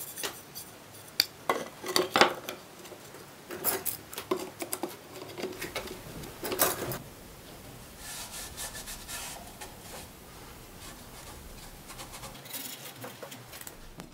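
Metal bar clamps and F-clamps clinking and knocking as they are set and tightened on a freshly glued wooden board: a string of sharp clicks and clanks in the first half, then quieter scraping and rubbing.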